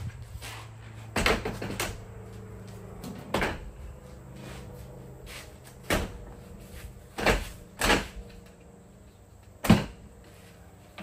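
Irregular knocks and bangs, six or so a second or more apart, the loudest near the end, over a low steady hum.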